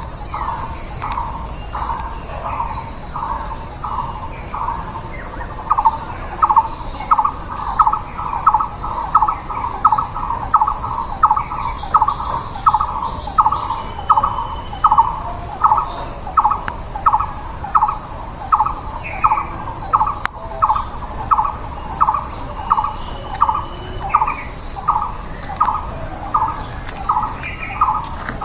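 A bird repeating one short, clipped call note over and over, about twice a second, growing louder about six seconds in, with fainter chirps of other birds in the background.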